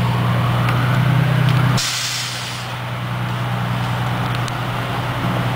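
Fire truck's diesel engine idling with a steady low drone. About two seconds in, its air brakes let out one short, sharp hiss.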